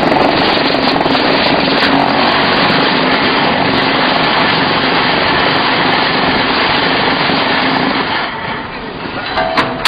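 QT4-26 concrete block making machine running its vibration cycle, a loud steady buzzing rattle with a constant hum as the mould is shaken to compact the concrete into a block. It dies down about eight seconds in, followed by a short sharp clank near the end.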